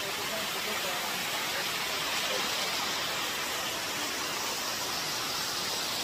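Waterfall's steady rushing noise as water pours down a rock face.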